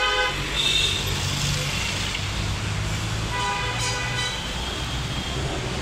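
Street traffic with vehicle horns honking over a steady low hum: a short honk at the start, and another lasting about a second from roughly three and a half seconds in.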